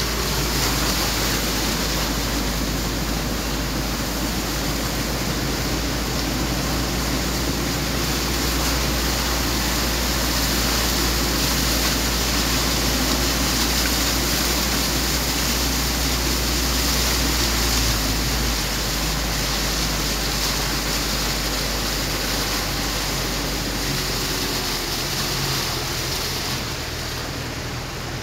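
Car driving along a flooded road, heard from inside the cabin: a steady rush of tyres through water over the low rumble of the engine, the engine note shifting a little in the second half.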